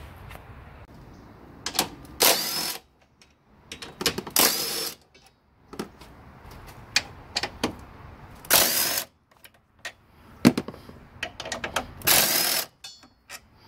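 Craftsman cordless drill-driver spinning a socket on the strut brace bolts in four short bursts, each about half a second long with a rising whine as the motor spins up. Light clicks and rattles of bolts and tools come between the bursts.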